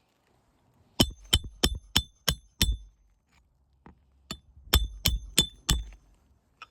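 Hammer striking a metal roof snake to drive roofing nails under a shingle tab: sharp ringing metallic blows about three a second, six in a row, a couple of lighter taps, then four more.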